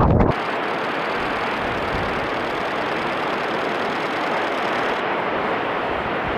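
Whitewater at a high waterfall rushing as a steady, even hiss. A louder low rumble cuts off suddenly just after the start.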